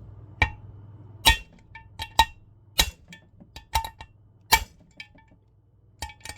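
Hammer tapping a bearing driver, seating a bearing into an aluminium motorcycle engine case: about ten sharp metallic taps at an uneven pace, each ringing briefly.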